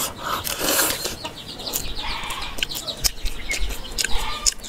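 Close-up eating sounds of puri and curry being chewed, with wet mouth clicks and lip smacks, over chickens clucking in the background.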